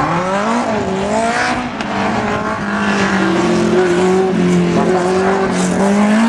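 1963 Elva Mk VII sports racing car's engine running hard through an autocross course. Its pitch climbs and drops with throttle and gear changes in the first couple of seconds, holds fairly steady in the middle, and rises again near the end.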